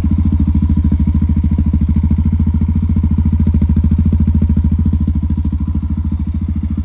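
Yamaha XT660R's single-cylinder four-stroke engine idling steadily with an even, rapid beat. It keeps running instead of cutting out, now that corrosion has been cleaned from the kill switch contacts.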